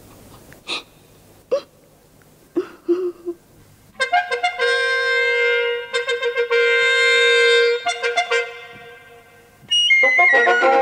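A few short sounds, then a wind instrument comes in about four seconds in, holding a note with quick repeated notes, and stops after about four seconds. Near the end a second instrumental phrase starts high with falling notes.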